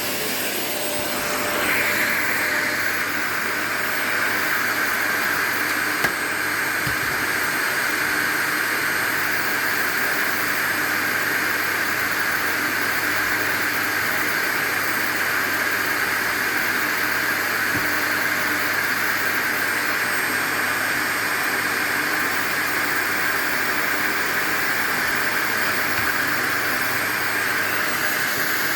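Vacuum cleaner running steadily, its motor noise growing louder about two seconds in and then holding even. A single short click about six seconds in.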